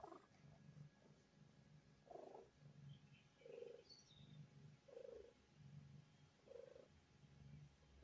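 Snow lynx Bengal cat purring faintly, the purr rising and falling with each breath in a steady rhythm.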